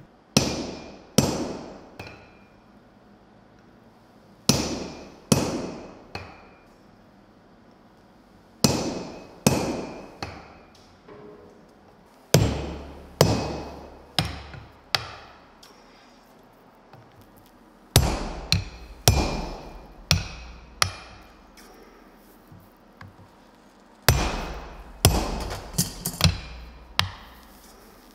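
Hammers striking red-hot steel on an anvil: a striker's sledgehammer and the smith's hand hammer coming down in bursts of three to six blows with pauses of a couple of seconds between. Each blow has a short metallic ring.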